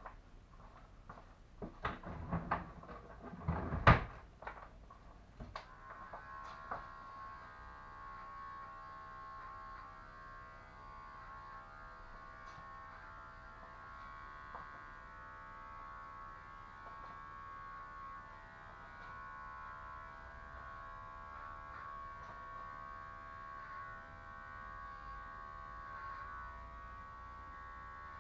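Several clicks and knocks, the loudest about four seconds in, then electric hair clippers switch on at about six seconds and run with a steady, even hum.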